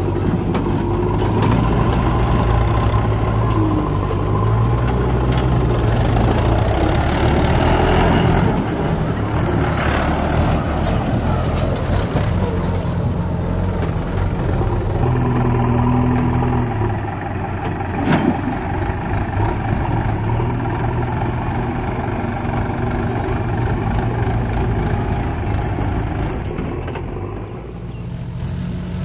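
Mahindra 575 DI tractor's four-cylinder diesel engine running under load as it hauls a trolley heaped with soil, its note rising and falling. A single sharp click about two-thirds of the way through.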